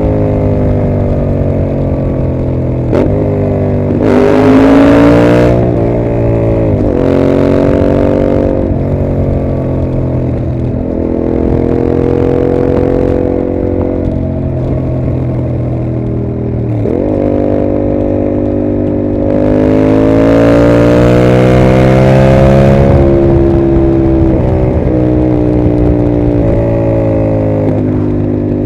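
2021 Yamaha MT-07's 689 cc parallel-twin engine through a Mivv GP exhaust while riding: the engine note climbs and drops repeatedly through the gears, with hard accelerations about four and seven seconds in and a longer one from about twenty to twenty-three seconds in.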